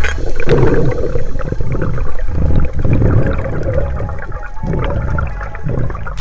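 Underwater water noise picked up by a camera in its housing: rushing and bubbling that comes in uneven surges as the camera moves through the water.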